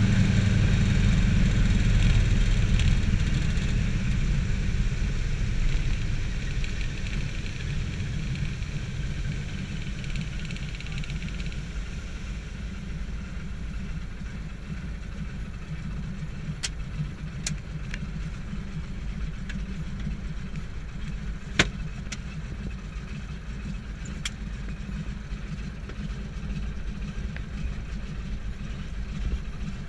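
The nine-cylinder Pratt & Whitney radial engine of a de Havilland Beaver floatplane throttling back over the first several seconds and settling into its loping low idle while the plane taxis on the water. A few sharp clicks come later, the loudest about two-thirds of the way through.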